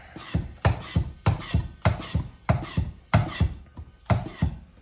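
Hand-pumped vacuum oil extractor being worked with quick, even strokes of its plunger, about three a second, stopping near the end. The pumping builds vacuum in the canister to suck the old engine oil up through the hose.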